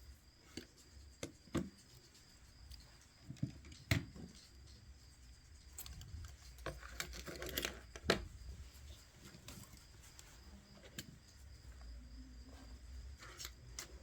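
Faint, scattered clicks and taps of small repair tools and phone parts being handled on the bench, a second or two apart.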